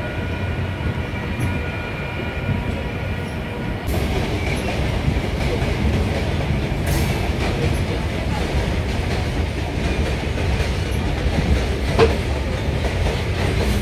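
Passenger train running, heard from on board: a steady rumble and clatter of the wheels on the rails that grows louder about four seconds in, with one sharp click near the end.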